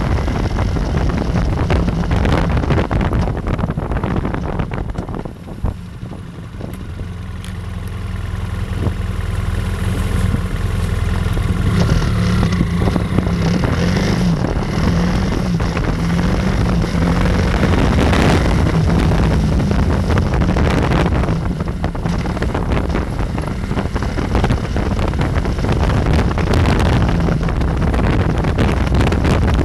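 BMW F800R's parallel-twin engine running while riding, with wind buffeting the microphone. The sound drops about five seconds in and builds back up over the next several seconds.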